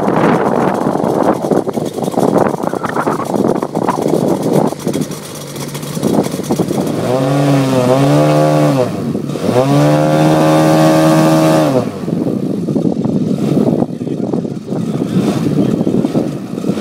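Engine of a giant-scale model Fokker Dr.I triplane running on the ground while the model is held back. Around the middle it is run up twice to a clean, higher steady note, the second run held for about two seconds, before dropping back to a rougher, lower running.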